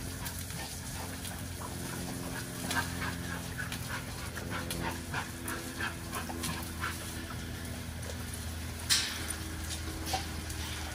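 XL pit bulls panting, with scattered short clicks and crunches of chewing. About nine seconds in comes a sharp clank, and a smaller one a second later, as a dog mouths the wire kennel panel. A steady low hum runs underneath.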